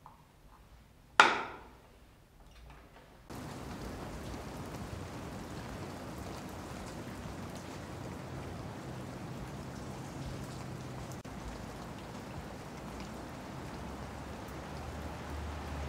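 A single sharp knock about a second in, then, starting abruptly about three seconds in, the steady hiss of rain falling.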